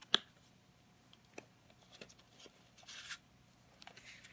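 A CD case and its paper booklet being handled: a sharp click near the start, a few light taps, and a short papery swish about three seconds in.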